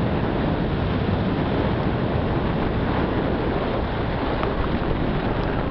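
Steady rush of wind buffeting the microphone of a moving car, over the low rumble of the vehicle and its tyres on a dirt road.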